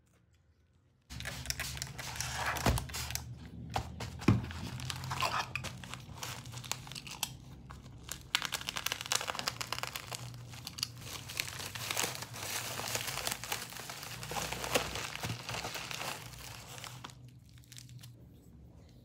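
Plastic packaging being crumpled and torn open by hand, a dense crinkling with sharp crackles that starts about a second in and fades near the end.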